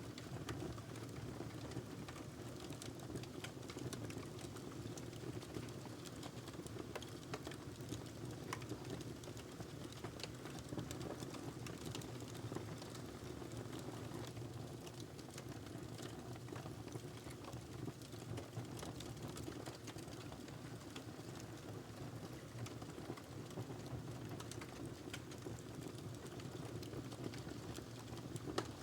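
Wood fire crackling in a fireplace: a steady low rumble of burning with many small irregular pops and snaps throughout.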